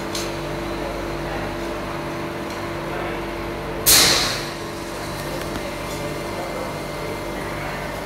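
Steady hum of workplace machinery with fixed low tones, broken about four seconds in by one loud, sharp hiss that dies away within about half a second.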